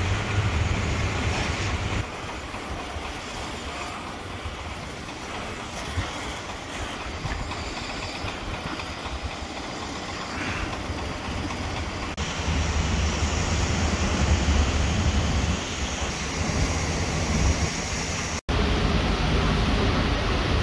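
Steady outdoor background noise of a shipyard dry dock, with a heavy low rumble in the first two seconds and again from about twelve to eighteen seconds in. It cuts out for an instant near the end.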